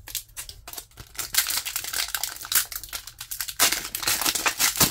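Foil wrapper of a Pokémon 151 booster pack crinkling as it is handled, growing louder near the end as the top of the pack is torn open.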